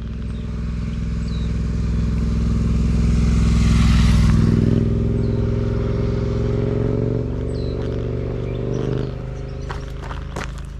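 A motor vehicle driving past on the road: engine and tyre noise swell to a peak about four seconds in, the engine's pitch drops as it passes, and the sound fades away.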